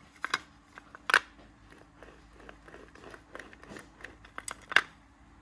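Pine rails fitted with bolts and ball bearings being handled and set down on a plywood board: a few sharp wooden and metal clacks, the loudest about a second in and near the end, with lighter clicks and rubbing between.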